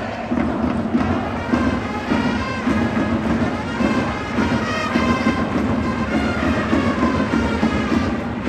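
Trumpets and drums of a baseball cheering band playing a fight song in the stands.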